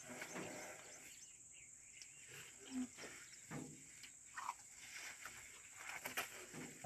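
Faint sounds of a Sri Lankan elephant wallowing in wet mud: a few short noisy squelches and splashes, and a couple of brief calls. The loudest call is a short low one a little under three seconds in.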